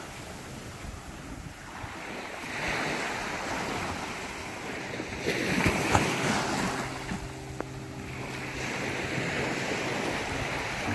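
Sea waves washing against jetty rocks in swelling surges, with wind buffeting the microphone. A low steady hum comes in about two-thirds of the way through.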